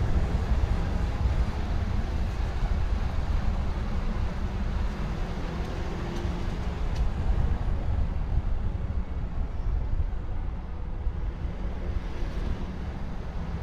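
Car being driven, heard from an action camera mounted on the outside of the car: a steady low rumble of engine, tyre and wind noise.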